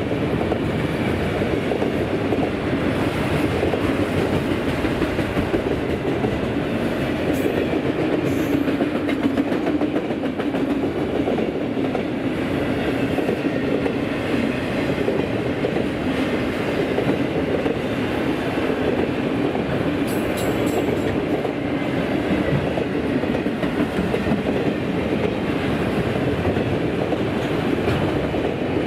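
A train's wheels rolling along the rails as its cars pass close by, a steady noise with no let-up.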